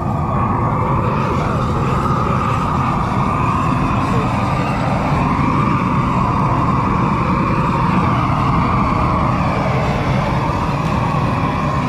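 Long-handled propane torch burning steadily, its flame played over a squirrel carcass to singe off the fur.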